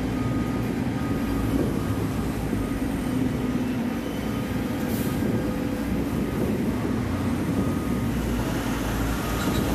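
Hyundai Trago dump truck's diesel engine running steadily as the loaded truck creeps through deep, soft dirt.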